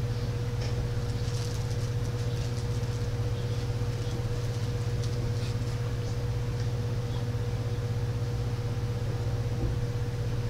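A steady low hum with one constant, higher tone held through it, and faint scattered ticks and clicks.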